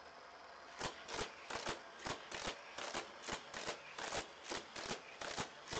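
Hot Wheels Roto Revolution playset's battery-powered boosters flinging a die-cast car around its loops. A quick whirring flick comes each time the car is shot through, about two and a half a second, starting about a second in.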